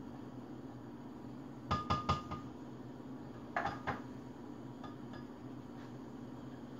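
A metal spoon clinking against a tin can and a glass blender jar as the can is scraped out. There is a quick run of about four clinks, one with a short metallic ring, about two seconds in. A couple more clinks follow a second and a half later, then a few faint taps.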